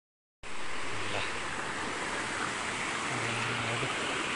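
Mountain stream rushing and splashing over rocks, a steady noise of running water that cuts in about half a second in.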